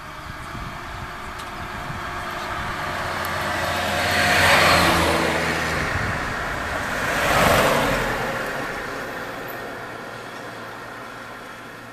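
Two road vehicles drive past close by, one after the other. Their engine and tyre noise swells to a peak about four and a half seconds in and again at about seven and a half seconds, then fades as they move off down the road.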